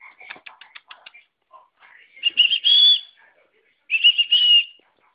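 A dog's squeaky toy squealing twice as Westie puppies bite it, each squeak high and nearly steady, lasting under a second, the second one about two seconds in and the other near four seconds. Light quick ticking from claws on the tile floor comes before them.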